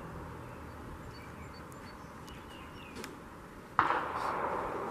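Quiet outdoor background with a few faint high chirps, then a sudden loud noise near the end that fades over about half a second.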